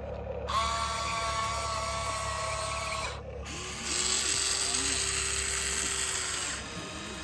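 Small electric gear motors of a Huina radio-controlled toy construction machine whining. There are two separate runs of about two and a half seconds each, with a short break just after three seconds.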